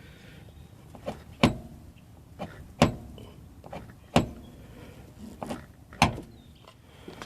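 Mitsubishi Lancer's Megan Racing coilover knocking as the car is bounced up and down: sharp pops in pairs, a lighter one then a louder one, about four times. The fix given for it is tightening the coilover's bottom nut, so the nut is loose.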